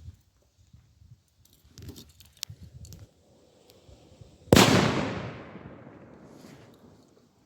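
A Bonbridge Colour Salute PP0038P/L firecracker going off with a single loud bang about halfway through, its echo dying away over two to three seconds. It is preceded by a few faint clicks and rustles.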